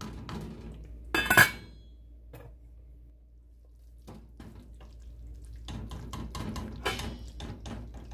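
Wooden spatula stirring a thick stew in a stainless steel pot, scraping and knocking against the pot. One loud ringing clank comes about a second in, and a run of quick knocks comes near the end.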